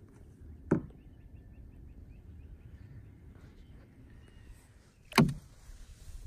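Two sharp, hollow knocks of a kayak paddle striking the side of a canoe, one about a second in and one near the end, the second a little louder, over a low steady rumble.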